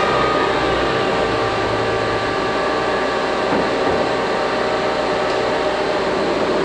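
Geminis GE-1000-A gap-bed engine lathe running under power with its spindle turning a faceplate: a steady geared-headstock hum with several whining gear tones.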